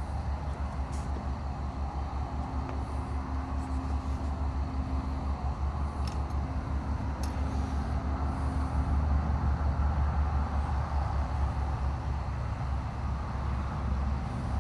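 Wind buffeting the microphone: a steady, rapidly fluttering low rumble with a faint hum under it in the first half.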